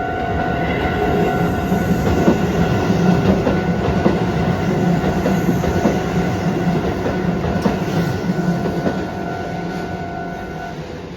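Keisei 3600-series electric train passing over a level crossing, its wheels clattering over the rail joints, loudest in the middle and then fading as it moves away. The crossing's warning bell rings steadily over it and stops near the end.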